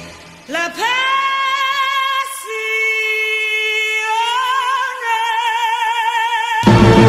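A female voice sings long held notes with vibrato, unaccompanied, sliding up into the notes and stepping higher partway through. The full band with drums comes back in just before the end.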